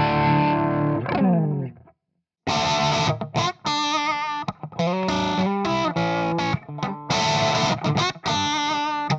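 Crunchy distorted electric guitar loop from a Fender Stratocaster through a Marshall JCM800 amp profile. A held chord dies away, there is a short silence about two seconds in, and then the riff starts again with choppy, stop-start chords through a Celestion Alnico Blue 4x12 closed-back cabinet impulse response.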